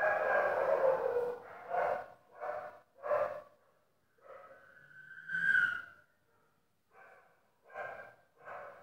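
Phone recording of repeated short, pitched crying calls, about one every second, with a longer drawn-out wail about five seconds in, which the uploader presents as a girl's ghostly screaming heard every night.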